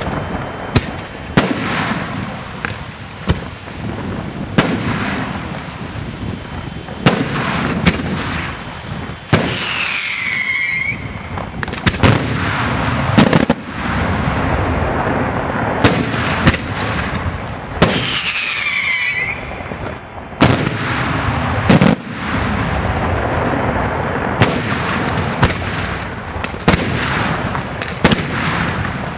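Aerial firework shells bursting in quick succession: sharp bangs over a continuous crackle. Two falling whistles sound about ten and eighteen seconds in.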